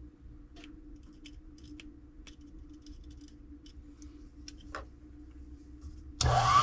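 A few light clicks and taps, then near the end a small lathe's motor switches on and spins up with a rising whine that settles into a steady run.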